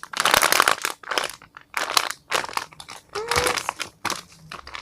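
Plastic packaging crinkling in a run of short bursts as a squishy toy is handled and squeezed.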